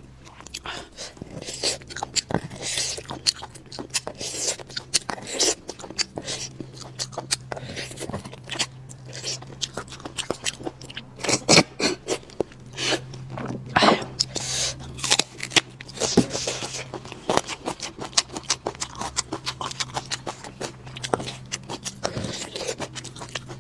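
Close-up eating sounds: marrow being sucked out of braised lamb bones, with slurps, chewing and irregular wet smacking clicks. A faint steady low hum lies underneath.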